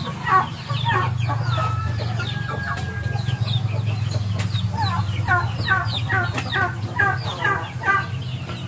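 Chickens clucking: a series of short falling calls, about two or three a second, heaviest near the start and again in the last few seconds.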